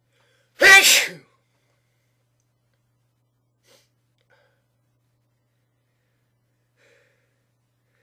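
A person sneezes once, a loud, sudden sneeze about half a second in that lasts well under a second.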